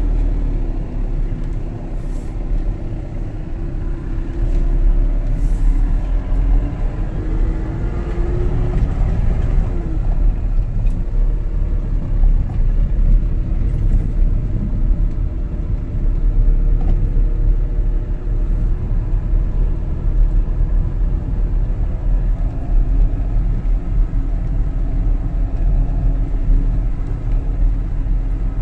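Engine and road noise heard from inside a moving road vehicle: a steady low rumble, with the engine note rising briefly about eight seconds in.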